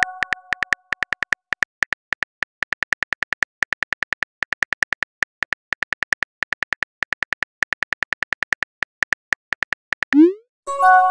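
Simulated phone keyboard typing clicks: a rapid, uneven stream of short taps, several a second, as a text message is typed out letter by letter. Near the end a short rising swoosh as the message is sent, then a bright ringing chime.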